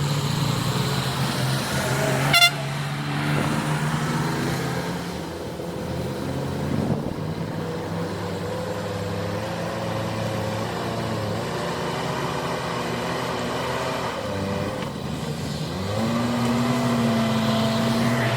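JCB 4CX backhoe loader's engine running under working load, its note shifting as the machine digs, with a sharp clank about two and a half seconds in. Near the end the engine speeds up and holds a higher, steady note.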